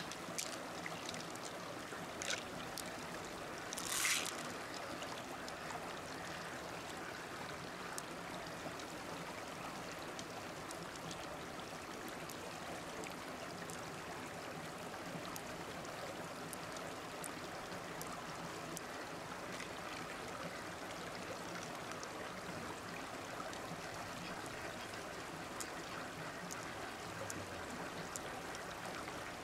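Shallow stream water running steadily over rocks, with a few brief clicks, the loudest about four seconds in.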